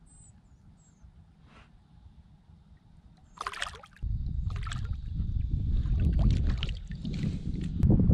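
Water splashing as a redfish is released by hand beside the boat, with a sharp splash about three and a half seconds in. From about four seconds on, wind buffets the microphone under more irregular splashing.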